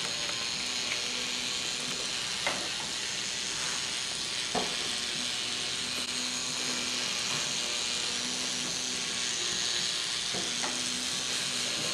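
A small K'NEX electric motor whirring steadily as it spins a plastic gear and paintbrushes, the brushes scrubbing across paper. A few sharp taps stand out, two a couple of seconds apart early on and one more near the end, as the plastic parts knock against the paper.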